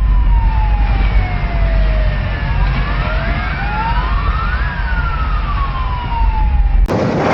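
Several wailing sirens sounding at once, their pitches slowly rising and falling and overlapping, over a heavy low rumble. Near the end the sound cuts off suddenly to a loud, even rushing noise.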